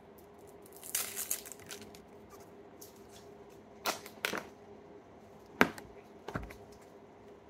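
Small plastic slime tubs and their plastic wrapping being handled and opened: a crinkling rustle about a second in, then a few sharp clicks and pops, the loudest just past halfway.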